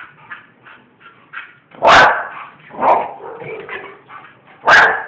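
Bull terriers barking: loud, short, sharp barks about two seconds in and again near the end, with a softer bark around three seconds.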